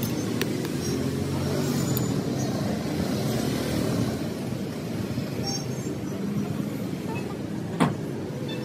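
Steady rumble of passing road traffic, with one sharp click near the end.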